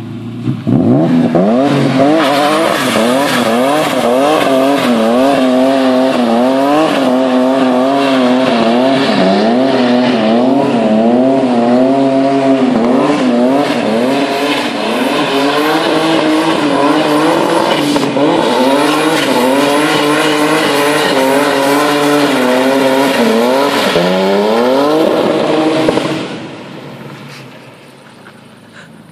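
Turbocharged BMW M50B28 inline-six in an E34 528 running at high revs during a long burnout, tyres spinning and squealing, with the engine pitch wavering up and down. Near the end the revs climb once more, then the sound drops away sharply about 26 seconds in.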